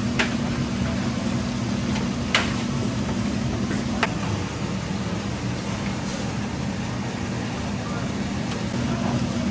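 Steady machine hum with a few sharp clicks or knocks, three in the first half.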